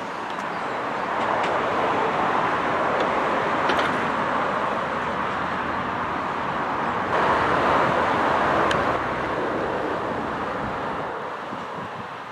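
A train passing: a steady rush of wheel and rail noise that swells about a second in and fades away near the end.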